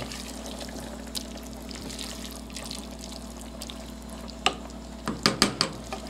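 Pot of soy-mince stew with potato and carrot simmering on the stove while being stirred: a steady simmering hiss with occasional knocks of the spoon against the pot, and a quick run of knocks near the end.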